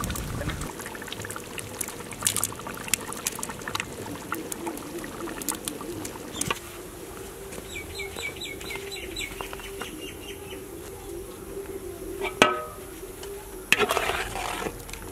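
Chickens clucking in the background while a large metal cooking pot is handled: clanks as it is lifted off the fire and set down, the loudest knock about twelve seconds in, then a metal ladle scraping in the pot near the end.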